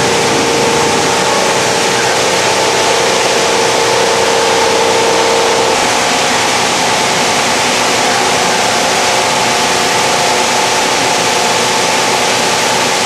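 Plastic recycling washing line running: the conveyor belt and granulator make a steady, loud machine din with several constant hum tones. One of the tones drops out about six seconds in.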